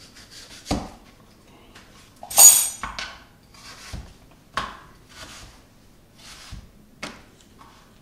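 Kitchen knife chopping peeled butternut squash into chunks on a plastic chopping board: irregular knocks of the blade through the squash onto the board, with a louder, ringing clatter about two and a half seconds in.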